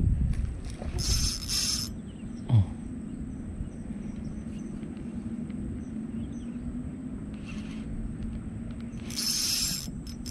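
Daihan Shinobi 1000 spinning reel whirring in two short bursts, about a second in and again near the end, over a steady low hum.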